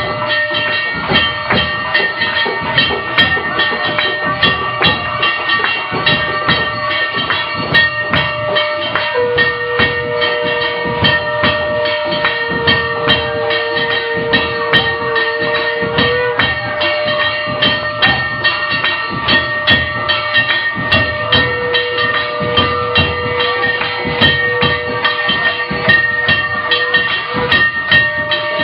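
Temple aarti: hand bells and cymbals clanging in a fast, unbroken clatter, with a steady bell ring running under it. A long held note sounds twice, from about a third of the way in and again in the last third.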